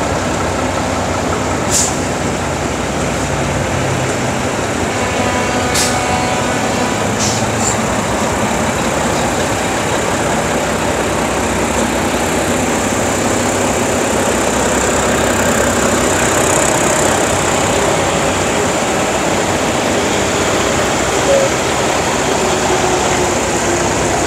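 Concrete mixer truck's diesel engine running steadily, with a few short sharp clicks in the first several seconds.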